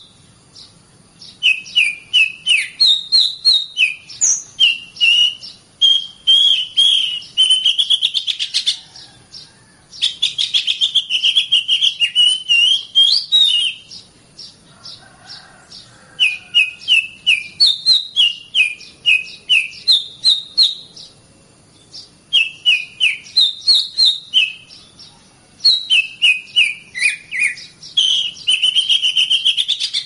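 A songbird singing in repeated bouts of a few seconds each: quick series of sharp, high notes running into fast trills, with short pauses between bouts.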